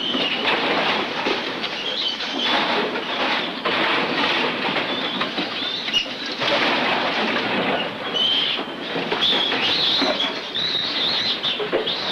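Continuous rustling and clattering at wire-mesh mink cages as they are handled and opened, with short high squeaks from mink scattered throughout and bunching near the end.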